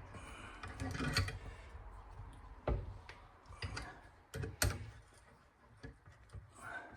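Scattered metallic clicks and knocks, with a few sharper ones near the middle, as a bearing puller's screw is turned to press the bearing out of a skid steer track idler wheel clamped in a vise.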